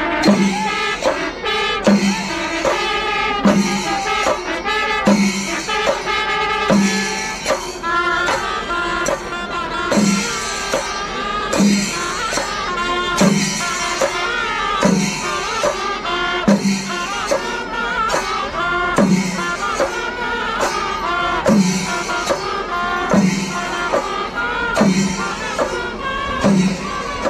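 Festival music from a traditional drum-and-wind ensemble: a deep drum beat a little more than once a second, with cymbals clashing in time and a reed or brass instrument playing a wavering, bending melody over them.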